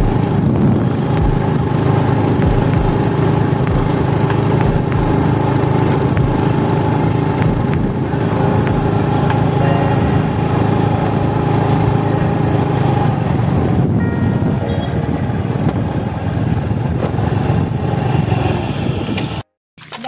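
Motorcycle engine running steadily while the bike is ridden along at a constant pace, heard from on board with road noise. It cuts off suddenly near the end.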